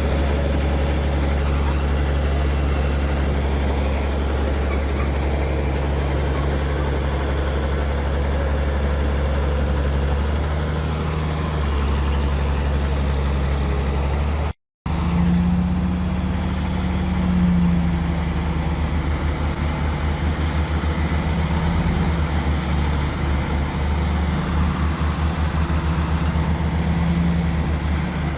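Heavy truck engine running steadily at low revs. The sound cuts out for a moment about halfway through, and the engine note is a little different and more pulsing after it.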